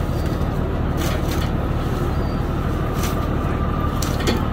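Steady low drone of an engine running, with a few sharp knocks and slaps as dogfish are handled in the boat's hold.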